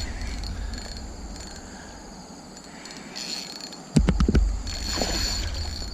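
Night insects chirping steadily in a high, fast-pulsing trill. About four seconds in there is a sudden knock followed by a few clicks and rustling handling noise.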